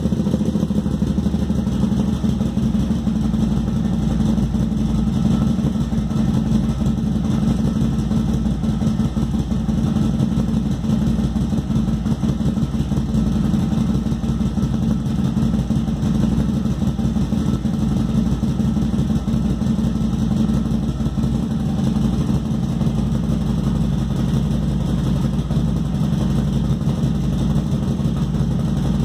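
Kasinski Mirage 650 V-twin cruiser engine idling steadily through a Roncar Scorpion aftermarket exhaust tip, a bevelled-cone tip with a removable baffle.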